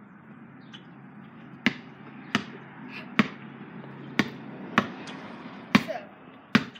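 A basketball being dribbled on a concrete driveway: seven sharp bounces, starting about a second and a half in and coming roughly one every two-thirds of a second.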